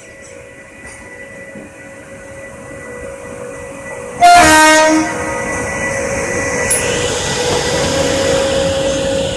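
Indian Railways WAP-7 electric locomotive sounding one short, loud horn blast about four seconds in as the train draws near. Its running noise grows louder before and after the blast.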